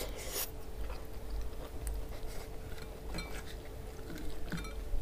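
Close-up chewing of a mouthful of soft okra-and-meat stew, with wet mouth smacks and small clicks scattered through. A faint steady hum runs underneath.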